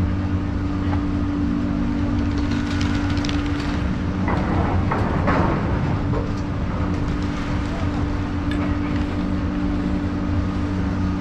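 Garaventa-CTEC Stealth II chairlift drive terminal running: a steady machine hum of several low tones under a noisy rush, with a brief louder rush about halfway through as chairs come round the bullwheel.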